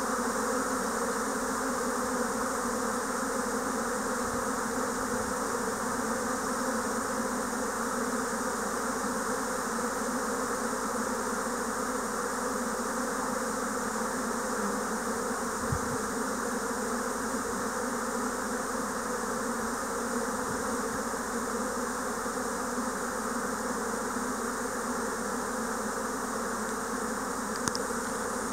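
A swarm of Japanese honeybees in flight, the steady buzzing of many bees at once as the colony swarms out around the hives.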